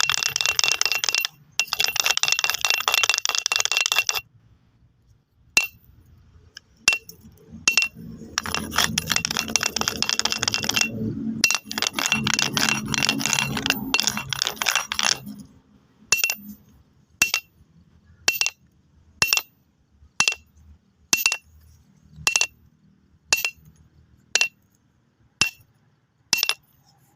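Stones rattling and clattering against each other in two long dense bursts, then single sharp clicks of stone striking stone, about one a second, each with a short bright ring.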